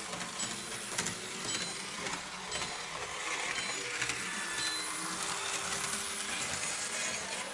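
Märklin model railcar running along the layout's track: a steady whirr with scattered light metallic clicks of its wheels on the rails.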